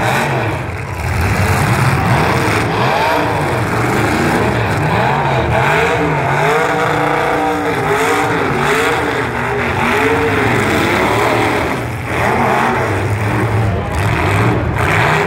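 Demolition derby truck engines revving up and down over and over, more than one at a time, with a few bangs near the end.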